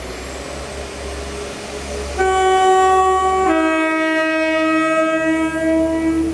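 Class 172 Turbostar diesel multiple unit running into the platform, then sounding its two-tone horn about two seconds in: a short higher note, then a longer lower note.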